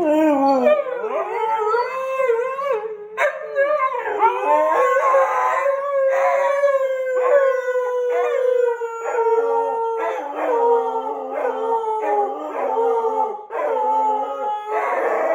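Two Siberian huskies howling together: several overlapping howls that waver and slide in pitch, with one long howl falling slowly through the middle.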